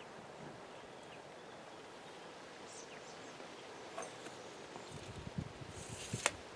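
Quiet outdoor background with a steady hiss, then a few faint knocks and one sharp click near the end.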